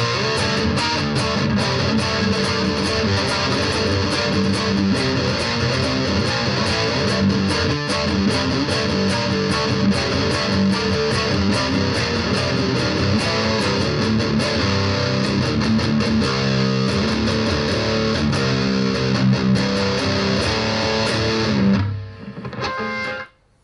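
BC Rich Virgin VG1 electric guitar on its bridge pickup, played through a Roland Cube Lite practice amp's distortion: a riff of many quick picked notes. Near the end the playing stops on a chord that rings briefly and is cut off.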